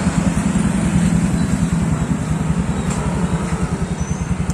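Motorcycle engine running steadily, a fast low throb that holds even and then cuts off abruptly at the end.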